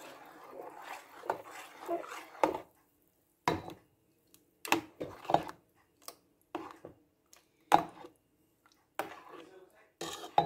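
Metal slotted spoon stirring thick puréed vegetable soup in a steel pot, with repeated clinks and knocks of the spoon against the pot at uneven intervals. A continuous swishing scrape runs through the first couple of seconds before the sounds become separate knocks.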